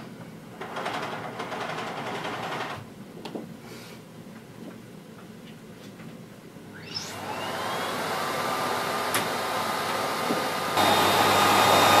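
Handling noises as the power cable of a Miele S8330 cylinder vacuum cleaner is pulled out, then about seven seconds in its 2200 W motor switches on and spins up with a rising whine into a steady running noise. It gets louder near the end.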